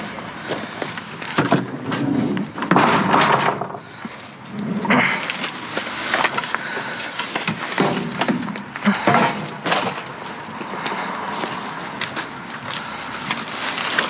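Pieces of scrap wood and debris being picked up and moved, giving irregular knocks, scrapes and clatter over a steady outdoor hiss.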